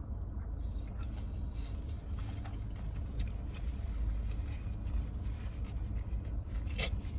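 A person chewing food with faint wet mouth clicks, over a steady low hum inside a car.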